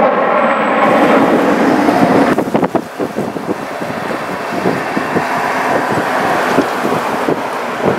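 Jet noise from a U.S. Navy F/A-18F Super Hornet's twin turbofans as it flies low in the landing pattern with gear down. A loud, steady rumble turns choppier and crackling about two and a half seconds in as the jet banks away.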